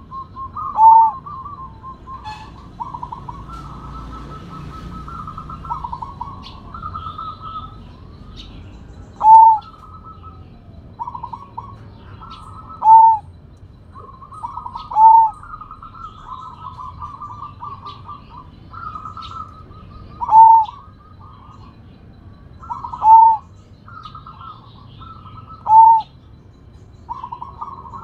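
Zebra doves (Sumbawa perkutut) cooing: a continuous stuttering trill of soft cooing notes, broken every few seconds by a short, loud, clear coo. The loud coo comes seven times, at uneven intervals.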